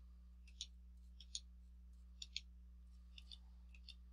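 Faint, irregular computer mouse clicks, about eight in a few seconds, over a low steady hum.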